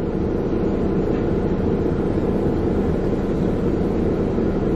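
Steady low rumble inside a car's cabin as the car sits idling in a queue.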